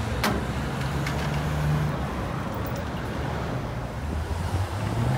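City street traffic: car engines running at low revs with a steady low hum, a sharp click about a quarter second in and a fainter one about a second in.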